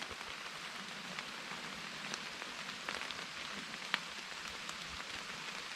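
Steady rain falling, with scattered louder drops ticking, the clearest a little before three seconds and just before four seconds.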